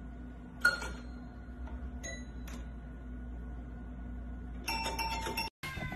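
Toy piano notes pressed by a cat's nose: a single chiming note about half a second in, then another about two seconds in with a fainter one right after, over a low steady hum. The cat plays the notes to ask for dinner.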